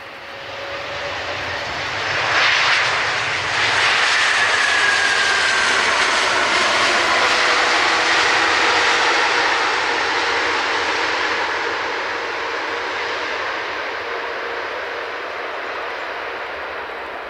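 Large jet airliner passing close, its engine noise swelling over the first couple of seconds, holding loud, then slowly fading, with a whine that falls in pitch as it goes by.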